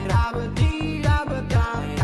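Background pop music with a deep kick drum about twice a second under a melody.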